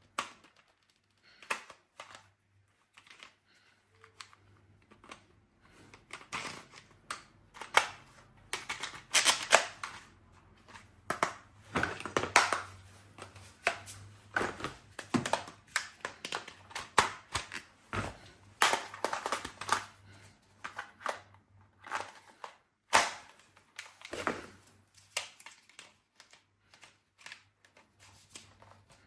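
Irregular clicks, knocks and rustling of toys and packaging being handled and unpacked, busiest in the middle, with one sharp knock about two-thirds of the way through.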